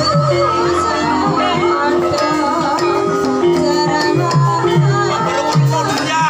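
Live Javanese gamelan music accompanying an ebeg (kuda kepang) horse dance: bronze kettle gongs ringing in a steady pattern over low strokes repeating about twice a second, with a wavering melody line above.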